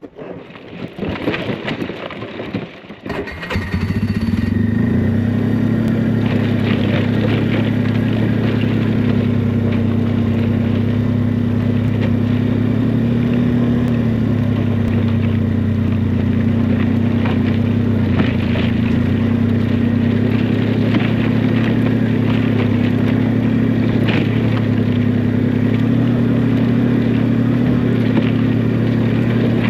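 Motorbike engine: after a few seconds of irregular noise it comes in loudly about three and a half seconds in and then runs steadily while riding, its pitch shifting only slightly.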